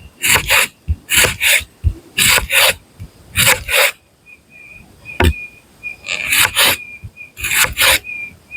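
A hand tool rasping back and forth on wood in steady strokes, about one pair of strokes a second, with a short pause and a single sharp knock about midway. A thin steady high tone runs through the second half.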